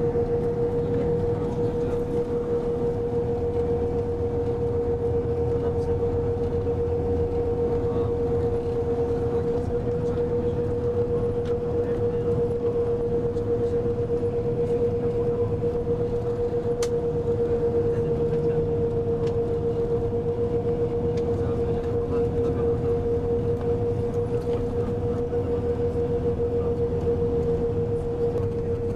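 Cabin noise of a moving road vehicle: steady engine and road rumble with a constant hum over it, heard from inside.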